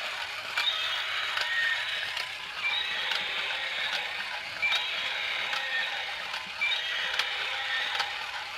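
Battery-operated toy dinosaur's small motor and plastic gears running, with sharp clicks in a cycle that repeats about every two seconds.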